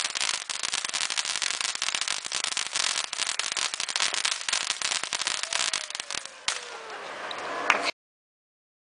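Consumer fireworks firing a rapid, dense crackling barrage of many pops a second as the grand finale. After about six and a half seconds it thins to a fainter fizzing with a whistling tone, then the sound cuts off abruptly.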